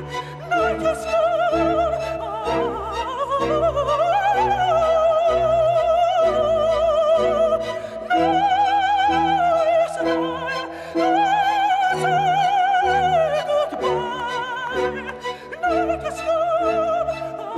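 A man singing in operatic style into a microphone. He holds long high notes with wide vibrato and slides up and down between them, over a sustained low accompaniment.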